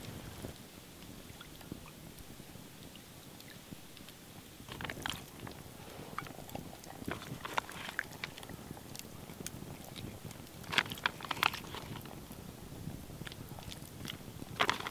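Open wood campfire crackling softly, with sharp crunchy clicks and crackles, loudest a little past the middle and again near the end, as slices of barbecue pork are handled and laid into a frying pan over the fire.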